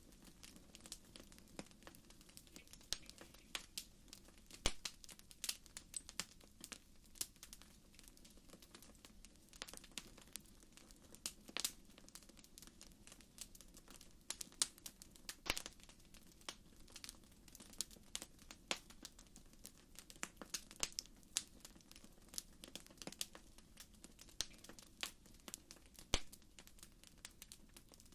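Campfire crackling, with irregular sharp pops and snaps scattered throughout.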